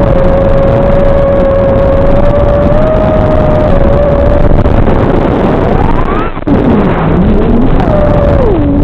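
FPV racing quadcopter's brushless motors and props (Xing 2206 2750KV motors on T-Motor 5143 props) whining through heavy wind and prop-wash noise, the pitch following the throttle. It holds steady for about four seconds, then swoops up, drops away briefly about six seconds in, and dips and climbs again near the end.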